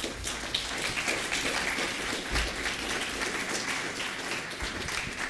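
Audience applauding: a dense clatter of many hands clapping that starts at once and begins to thin out near the end.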